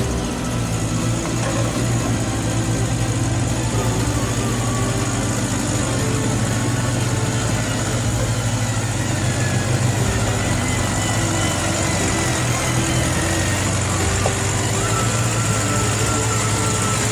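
Radio-controlled Hino truck running with a steady low engine-like hum over a noisy haze, and faint higher tones coming and going.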